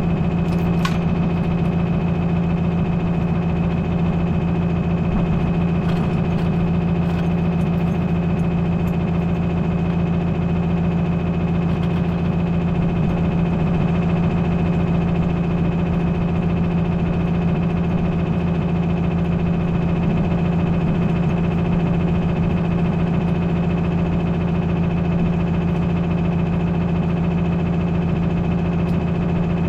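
Diesel farm engine running steadily at one constant speed, a deep even drone with a faint high whine over it.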